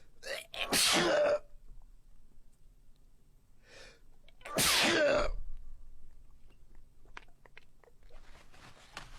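A person sneezing loudly twice, about four seconds apart. Each sneeze is a sharp burst with the voice falling in pitch.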